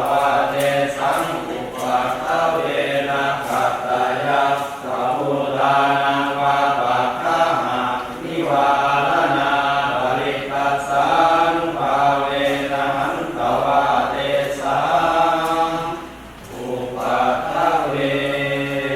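Thai Buddhist monks chanting together in unison, a steady, low-pitched group recitation of Pali verses with a brief dip in level near the end.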